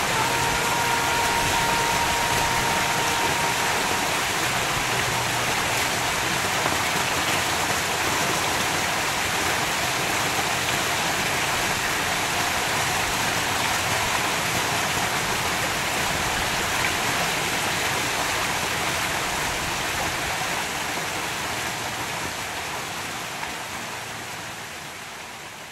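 Water pouring over a two-tier rock-boulder waterfall into a swimming pool: a steady splashing rush that fades out near the end.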